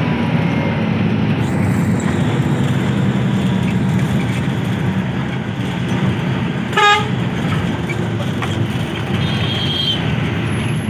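Steady road and engine noise of a moving bus, with one short horn toot about seven seconds in.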